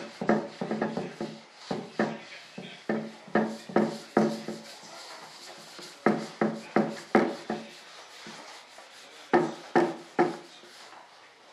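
Paste wax being buffed off a mold plug by hand: short rubbing strokes across the waxed surface in quick irregular runs, with a lull about eight seconds in.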